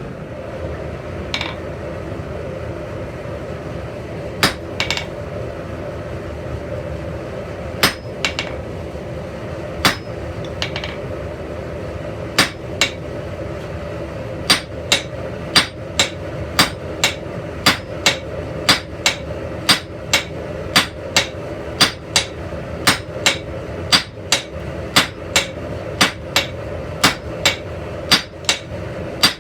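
Blacksmith's hand hammer striking metal on an anvil while forging: a few scattered blows at first, then a steady rhythm of about two blows a second over a constant background noise.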